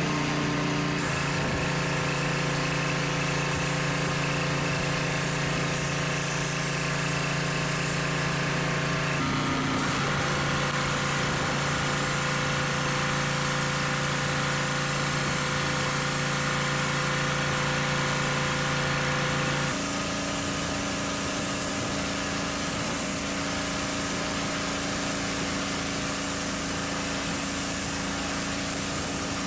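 Small gasoline engine of a gas pressure washer running steadily, with a constant pitch. The engine note changes abruptly three times, as separate recordings are cut together.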